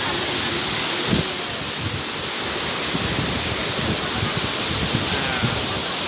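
Mountain stream water rushing over a rocky cascade below a waterfall: a steady, full rush of white water.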